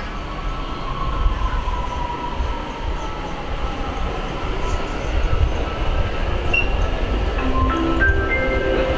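Metro train running: a steady low rumble with an electric motor whine that slowly falls in pitch. Near the end comes a short series of steady tones stepping upward.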